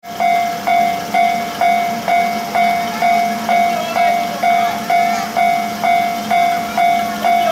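Railway level-crossing warning bell ringing steadily, about two strikes a second, each strike dying away. Under it is the steady low hum of the Kiha 52 diesel railcar's engine idling before departure.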